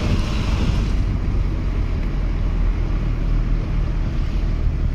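Road and wind noise of a moving car heard from inside the cabin: a steady low rumble under a hiss that eases about a second in.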